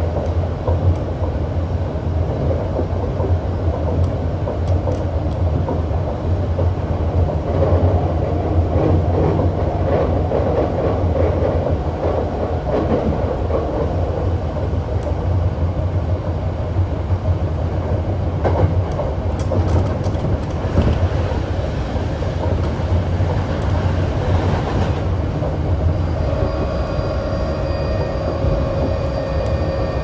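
Hankyu 7300 series electric train with Toyo IGBT inverter running along the line: a steady low rumble of wheels on rail with scattered clicks over joints. Near the end a steady electric whine from the inverter-driven traction motors joins in.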